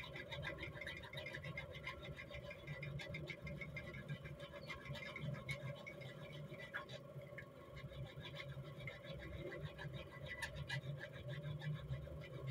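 Hand file rasping in short repeated strokes against a small steel rifle ejector blank held in a bench vise, over a low steady hum.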